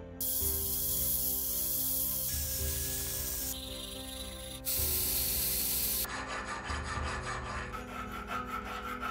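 Steel hand file rasping over brass, with the scraping stopping and starting abruptly several times. Quick separate file strokes are heard in the last few seconds. Background music plays underneath.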